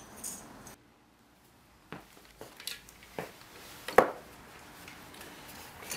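A caulk tube with a copper extension tip being handled against a wall: scattered light clicks and taps, with one sharp knock about four seconds in.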